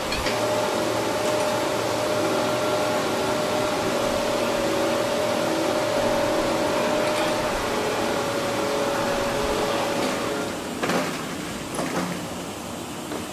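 Steady hum of noodle-factory machinery, a noisy drone with a few steady tones in it. Two short knocks come near the end, and the hum gets a little quieter after them.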